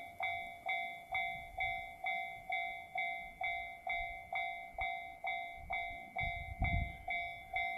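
Railway level-crossing warning bell ringing, an even clang repeating about twice a second. A low rumble swells about six seconds in.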